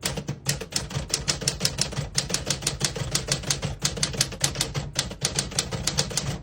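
Keys of a 1949 Smith-Corona Sterling manual portable typewriter typing a sentence: a quick, even run of sharp key strikes, several a second.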